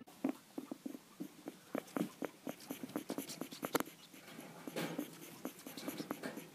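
Guinea pig breathing with a strange clicking sound, a run of irregular short clicks several times a second, sounding labored: the sign of a respiratory infection with mucus in the lungs that she is trying to clear.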